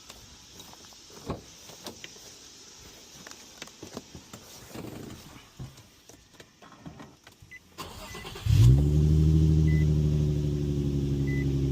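Infiniti G25's VQ25HR V6 engine cranking briefly and starting about eight seconds in, flaring up and then settling into a steady idle on its first start with the new Injen intake fitted. Before it, only faint clicks and handling noises.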